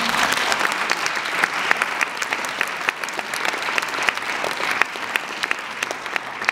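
Audience applauding, a dense spatter of hand claps with some louder single claps standing out, thinning near the end.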